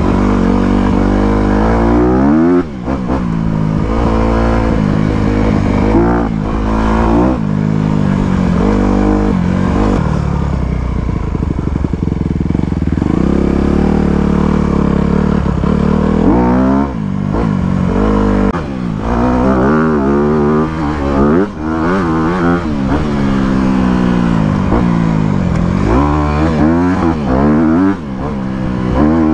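Honda CRF250R dirt bike's four-stroke single-cylinder engine running under way on a trail ride. Its revs climb and drop over and over as the throttle is worked.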